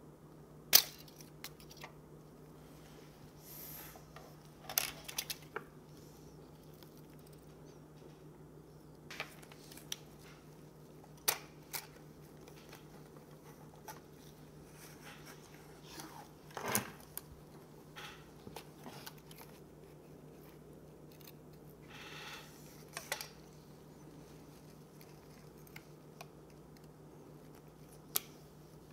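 Scattered small clicks, taps and brief scrapes of hands working on a compact camera's parts during a screen repair, over a faint steady hum. The sharpest click comes about a second in.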